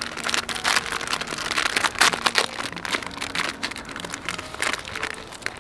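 Irregular crinkling and rustling from a plastic instant-noodle packet being handled, mixed with dry fallen leaves rustling underfoot.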